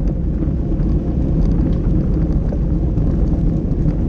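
Steady low rumble of wind buffeting and road vibration picked up by an action camera mounted on a racing bicycle's handlebars, riding in a bunch over a brick-paved street, with faint scattered clicks.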